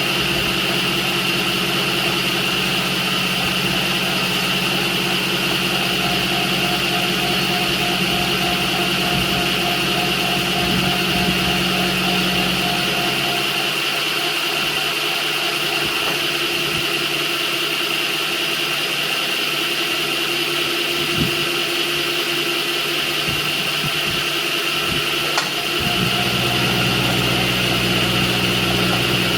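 Milling machine running steadily as an end mill cuts a slot in 7075 aluminum, in a slow conventional cut. A low hum under the cutting noise drops out about 13 seconds in and comes back about 26 seconds in.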